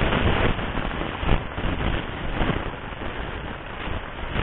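Steady rushing noise of wind and sea water around a small fishing boat at sea, with no clear engine note.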